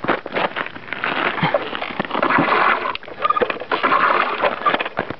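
Hand air pump being worked, roughly one stroke a second, pushing air into an upturned 2-liter pop bottle of water on a water rocket launcher so that it bubbles and sloshes up through the water as the bottle builds pressure.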